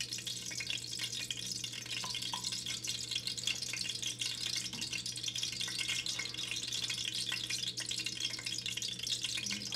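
Ghee sizzling and crackling as it heats in a stainless-steel pan on an electric stove, a steady hiss full of small pops, over a steady low hum.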